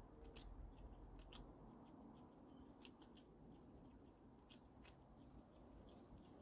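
Grey squirrel nibbling a biscuit: faint, crisp crunching clicks at irregular intervals, about one a second.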